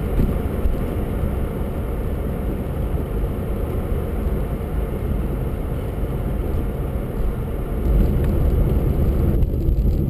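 Steady road and engine noise inside a moving car's cabin as it drives on snow-covered streets, growing a little louder near the end.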